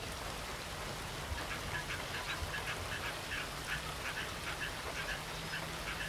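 Rain falling steadily on open water, a continuous hiss, with a rapid series of short, high bird calls starting about a second in and running on.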